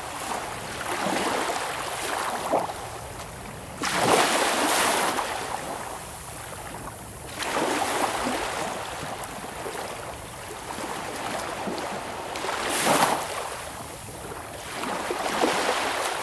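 Sea surf: waves breaking and washing in one after another, about five swells that each rise and fall over a second or two.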